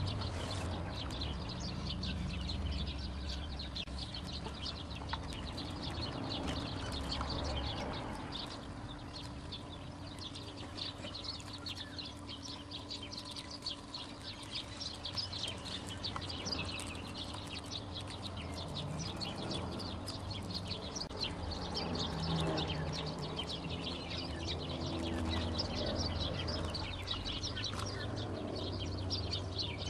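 Small birds chirping busily in the background, with a steady low rumble underneath.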